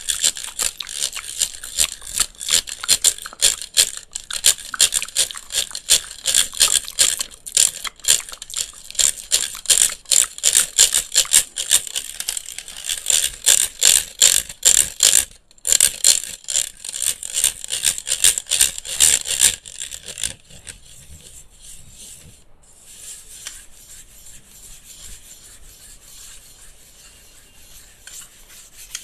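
ASMR scratching and rubbing on a handheld electric fan, many quick rasping strokes in fast succession. It drops to a much softer, quieter rubbing about two-thirds of the way in.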